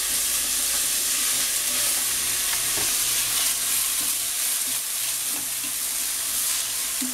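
Freshly washed rice sizzling steadily as it fries in garlic and olive oil in a pot, stirred with a spatula that scrapes and turns the grains.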